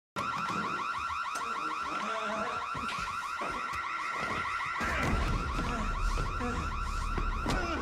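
A shrill electronic alarm warbles fast and without a break, repeating several times a second. About five seconds in, a deep low rumble joins it, along with scattered knocks and scuffles.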